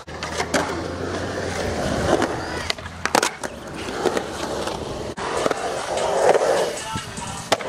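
Skateboard wheels rolling over concrete with a steady rumble, and a sharp clack of the board a little after three seconds in, with a few lighter clicks around it.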